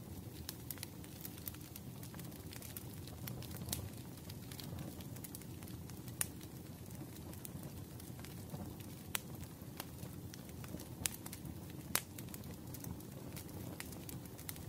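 Burning firewood crackling, with irregular sharp snaps over a steady low rush; a few louder snaps stand out, the sharpest about twelve seconds in.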